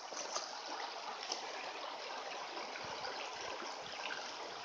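Shallow mountain creek running steadily over stones, with a few faint ticks.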